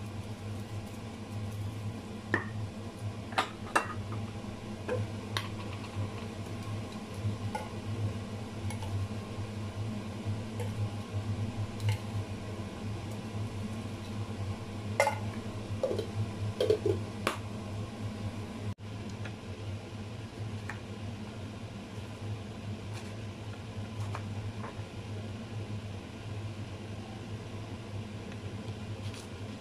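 Spice shakers and bottles clicking, tapping and being set down while raw chicken thighs are seasoned, over a steady low appliance hum. Later come a few faint knife taps on a plastic cutting board as Brussels sprouts are trimmed.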